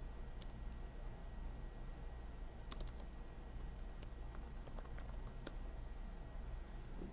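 Light keystrokes on a laptop keyboard: a handful of scattered taps, some in quick pairs and clusters, over a low steady hum.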